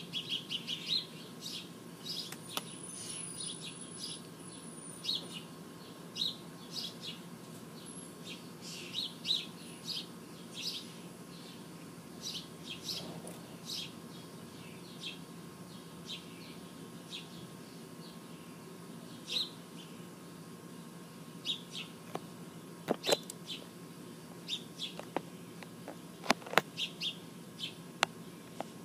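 Small birds chirping outdoors: short high chirps repeating with gaps, busiest in the first half, over a steady low background hum. A few sharp clicks come in the second half.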